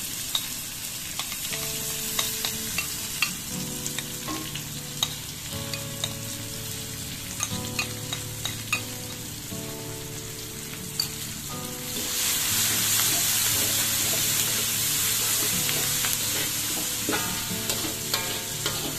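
Garlic, shallots, curry leaves and chillies sizzling in hot oil in a wok, with a spoon and fork clicking and scraping against the metal as a chilli-tomato sauce mixture is added and stirred in. The sizzling gets clearly louder about two-thirds of the way through.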